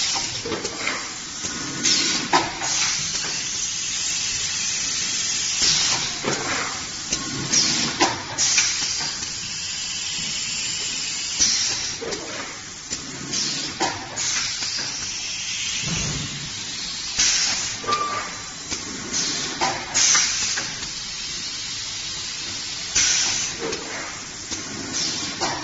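Pneumatic popcorn cup sealing machine running: a steady hiss of compressed air, with a loud burst of air exhausting from its cylinders every second or few, and short clanks of the sealing press and trays.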